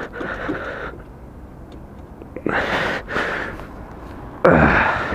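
A person's heavy, breathy exhales close on a helmet microphone, ending in a loud groaning sigh with a falling pitch near the end.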